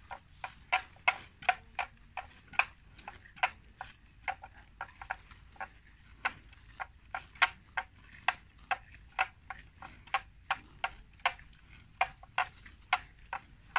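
Water buffalo grazing on plants: a run of short, sharp tearing snaps, roughly two or three a second.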